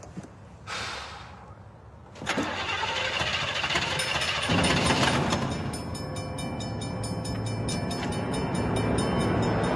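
A small car's engine being cranked over by its starter in repeated tries. From about six seconds a fast, evenly repeating ringing joins in, fitting the level crossing's warning bell.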